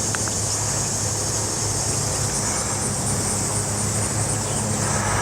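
Steady outdoor background of an insect chorus, a constant high-pitched buzz, over a low steady rumble.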